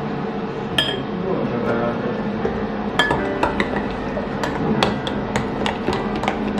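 Kitchen utensils clinking against dishes: one sharp clink about a second in, then a quick run of clinks and knocks from about three seconds on.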